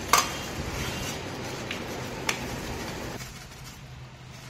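Freshwater snails tipped out of a plastic bag onto a steel plate: the bag rustles and the shells give a few sharp clicks against the metal, growing quieter after about three seconds.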